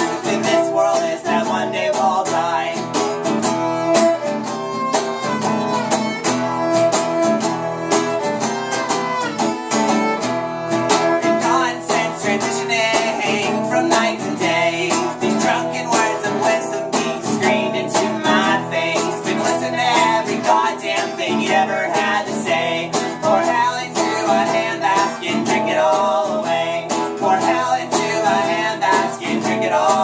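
Violin and acoustic guitar playing a song together without vocals: the guitar strummed in a steady rhythm under the violin's bowed melody.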